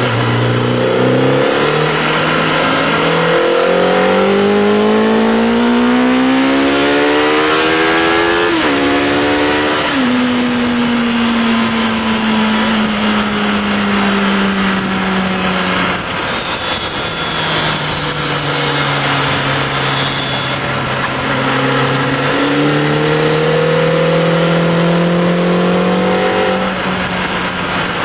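Sport motorcycle's four-cylinder engine heard from the rider's seat on track with wind rushing past: the engine note climbs under acceleration for the first eight seconds or so, falls away steadily from about ten seconds in as the bike slows, then climbs again in the last few seconds.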